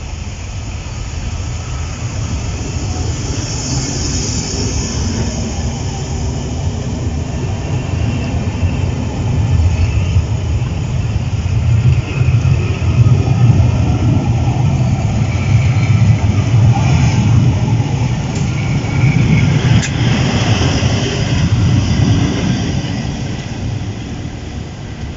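A diesel-hauled passenger train passing close by: coaches roll past with steady wheel and rail noise. A heavier engine rumble builds from about halfway and peaks as the rear of the train passes, most likely the trailing Class 47 and its Sulzer V12 diesel. The sound then fades as the train draws away near the end.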